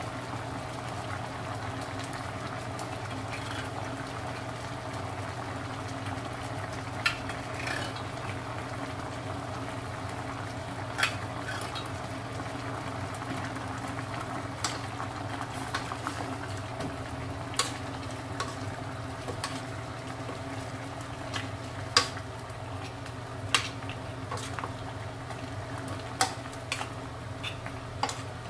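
Beef stew boiling in a stainless steel pot. A metal spoon clinks against the pot in irregular sharp knocks as the stew is stirred, starting about seven seconds in, over a steady low hum.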